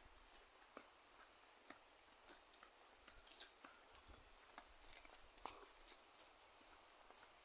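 Faint, irregular crunching and clicking of footsteps on a dirt trail, with a few louder crunches scattered through.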